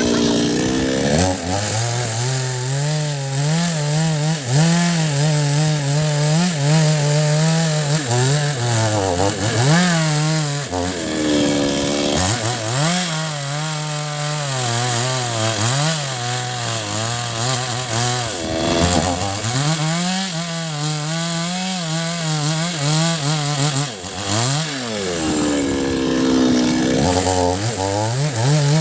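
Chainsaw cutting into a large rain tree root stump at high revs. The engine pitch sags repeatedly as the chain loads up in the wood, then climbs again as it frees.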